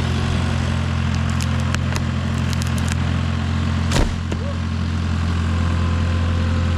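Engine running steadily at a constant speed, with a few light clicks and one sharp knock about four seconds in.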